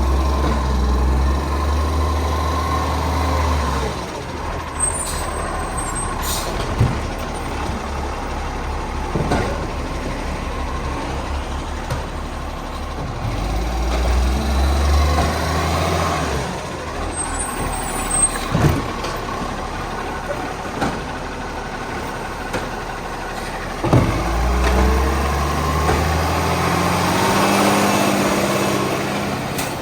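Garbage truck working: its diesel engine revs up three times, in between several sharp clunks and two short hisses of air.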